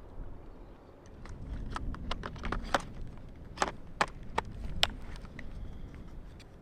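A series of irregular sharp clicks and knocks, most between about one and five seconds in, over a steady low rumble.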